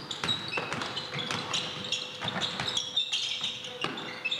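Basketball game in a gym: a ball bouncing on the court floor with repeated short thuds, and sneakers squeaking in many short high-pitched squeaks.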